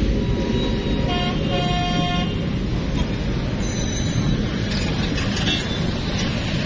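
A train passing with a steady diesel rumble. A horn sounds for a little over a second about a second in, and a brief higher tone follows near four seconds.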